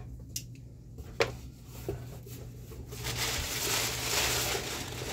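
Cardboard box being opened: a few sharp knocks of the cardboard flaps in the first two seconds, the loudest a little over a second in, then from about three seconds in a steady rustle of packing paper being pulled out of the box.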